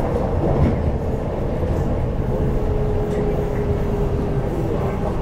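Inside a CNR Changchun 'C-train' metro EMU's motor car running between stations: a steady rumble of wheels on rail. About two seconds in, a thin steady whine from the IGBT-VVVF traction equipment comes in, and its pitch steps slightly lower near the end.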